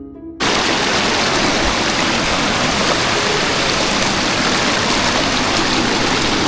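A short stretch of harp-like music cuts off abruptly about half a second in, giving way to the loud, steady rush of flowing water.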